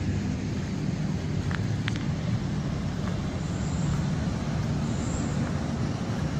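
Steady low outdoor rumble of open-air ambience: wind on the phone's microphone mixed with distant road traffic.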